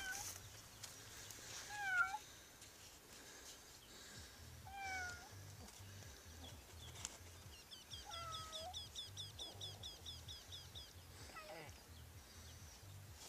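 Cat meowing from inside a tin can its head is stuck in: five falling meows a few seconds apart, the calls of a trapped cat.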